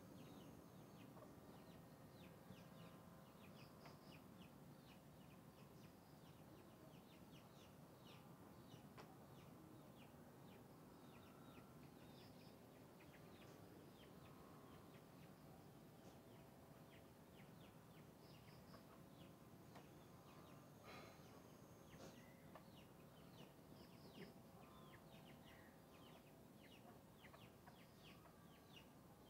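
Faint rural ambience of chickens clucking and small birds chirping, the chirps coming several times a second throughout.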